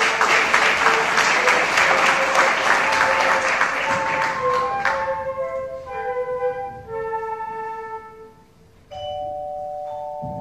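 Audience applauding for about five seconds over soft instrumental music. The applause dies away and the music carries on alone in clear, bell-like held notes, with a short gap about a second and a half before the end.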